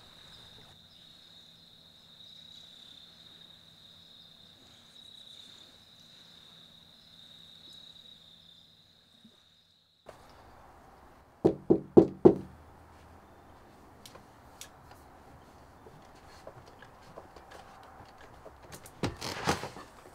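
Crickets chirring in a steady high drone. After a sudden cut, four quick knocks on a door are the loudest sounds, followed near the end by a brief clatter.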